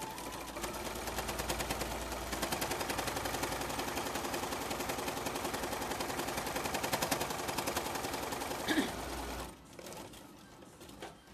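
Electric sewing machine stitching a seam at speed, its needle running in rapid, even strokes, then stopping about two seconds before the end.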